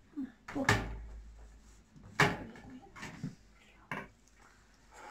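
Metal cooking pot and lid knocking and clattering against a wood-burning stove as they are handled: three sharp knocks about a second and a half apart, the middle one the loudest.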